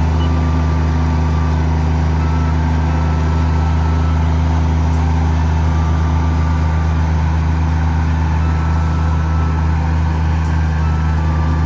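Kubota KALWEY KR220 two-row combine harvester running steadily at a constant pitch, engine and machinery with no change in speed.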